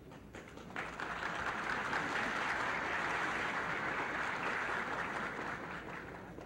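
Audience applauding. The applause starts about a second in, holds steady, and dies away near the end.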